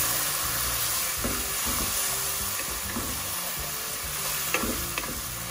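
Chopped tomatoes sizzling in hot oil with fried onions and spices as they go into the masala, stirred with a wooden spoon. The spoon's strokes against the pan come through now and then over a steady sizzle.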